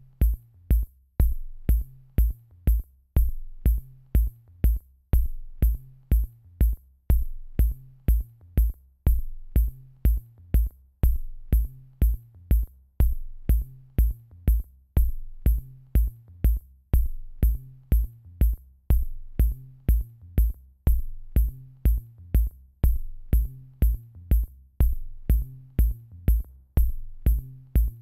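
Background electronic music with a steady drum-machine beat, about two beats a second.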